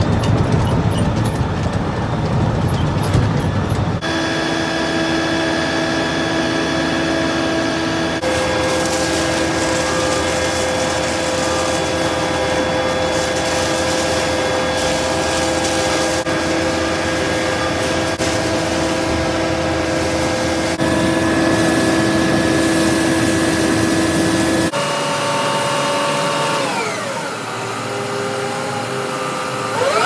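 Concrete mixer truck running: first the truck heard from inside the cab on the road, then the engine and turning drum at the plant, a steady hum of several held tones, with a hose spraying water on the hopper and chute. Near the end the pitch falls as the engine slows, then rises again.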